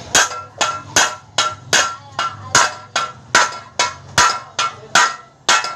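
Steady metal-on-metal hammering, about two and a half blows a second, each blow a sharp strike with a short metallic ring, as a part is pounded in during bicycle assembly.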